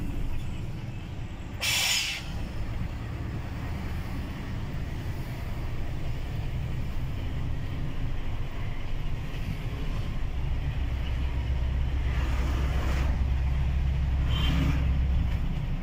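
Truck engine running with a low steady drone and road noise, heard from inside the cab while driving; the drone grows louder about two thirds of the way through. A short, sharp hiss about two seconds in, and fainter hisses near the end.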